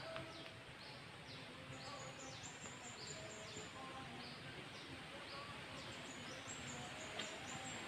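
Faint outdoor ambience: a steady hiss under clusters of quick, high chirps that each fall in pitch, coming two or three a second.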